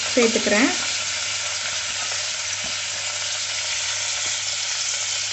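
Sliced onions and curry leaves sizzling in hot groundnut oil and ghee in a pressure cooker, a steady frying hiss, with a couple of faint taps midway.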